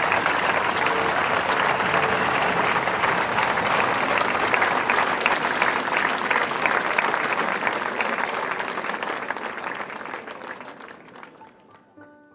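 A large crowd applauding, a dense steady clatter of many hands that dies away over the last few seconds.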